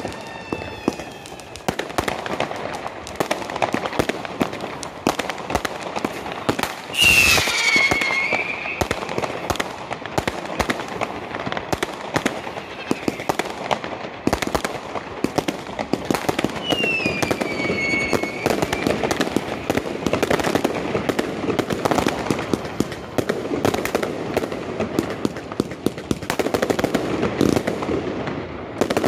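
New Year's fireworks going off in a continuous run of bangs and crackles. The loudest burst comes about seven seconds in, and two whistling tones falling in pitch sound at about seven and seventeen seconds.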